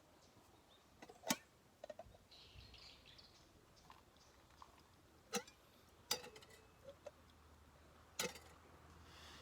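Quiet, broken by four sharp clicks or light knocks a second or more apart, with a few fainter ticks between them.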